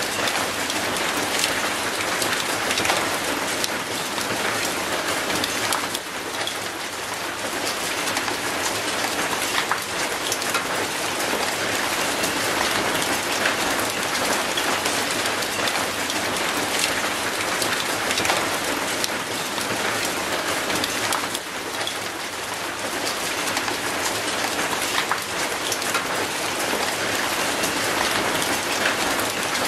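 Steady rain falling onto concrete and an old rusty metal gate, an even hiss with many individual drop hits ticking through it.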